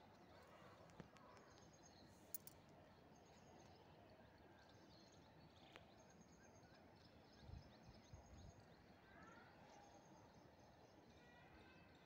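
Near silence: faint outdoor background with a few faint, short high chirps scattered through it.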